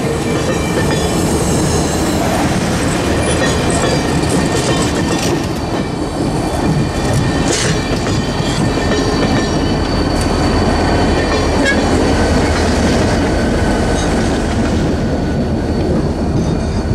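Cuyahoga Valley Scenic Railroad stainless steel passenger cars rolling past close by, the wheels clicking over the rail joints with thin high squeals. A low rumble grows in the second half as the locomotive at the end of the train goes by.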